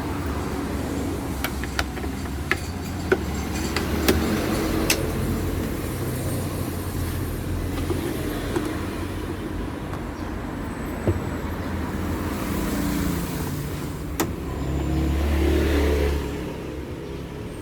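Scattered sharp clicks and knocks of the washing machine's plastic covers being handled and fitted back in place, over a steady low background hum that swells briefly near the end.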